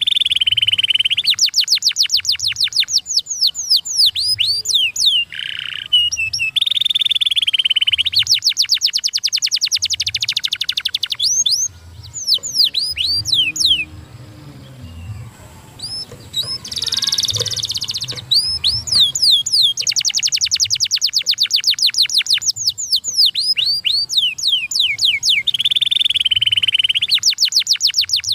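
Domestic canary singing, with fast trills of rapidly repeated high sweeping notes and rolling held phrases. The song drops away briefly about halfway through, then picks up again.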